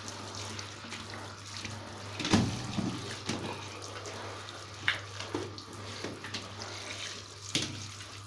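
Tap water running while vacuum cleaner parts are rinsed in a sink, with a few sharp knocks against the basin.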